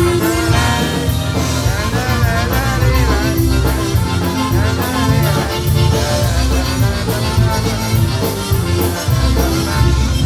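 Live polka band playing an instrumental passage, with squeezebox melody over bass and a steady drum beat.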